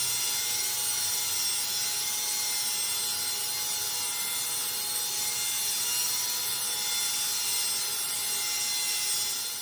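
Electric drill spinning a 3500-grit polishing pad against a wet marble countertop: a steady motor whine over a high hiss of the pad rubbing the stone, the final polishing step.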